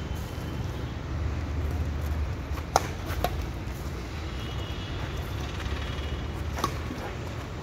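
Badminton racquets hitting a shuttlecock during a rally: sharp pops, two close together about three seconds in and another near the end, over a steady low rumble.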